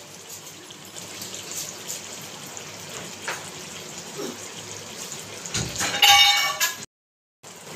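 Sauce simmering in a pan with a steady low bubbling hiss and a few faint ticks; about six seconds in, a loud ringing metal clang against the pan. The sound cuts out abruptly for a moment near the end.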